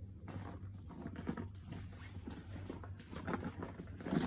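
Irregular rustling and small knocks and clicks from a new Louis Vuitton Keepall travel bag being handled and wrestled with, over a faint steady low hum.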